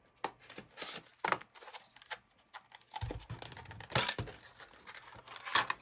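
A new SSD's packaging being torn open and handled: irregular tearing, crinkling and clicks, with a couple of dull knocks about three to four seconds in.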